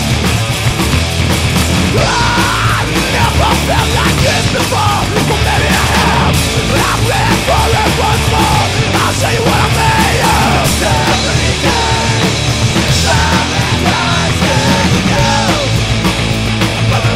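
Loud punk rock song, with singing that comes in about two seconds in over a steady bass and drum beat.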